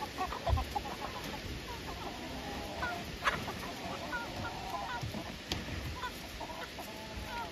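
A small flock of chickens clucking, with many short calls overlapping, and a few soft low thumps.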